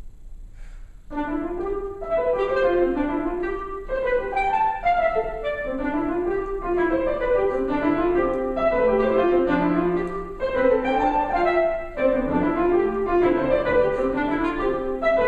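Clarinet and piano playing contemporary classical music, starting about a second in after a brief quiet moment, with quick rising and falling runs over piano chords.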